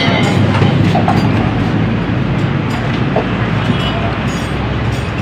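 Steady loud low rumble of running machinery, with a few light metallic clicks scattered through it.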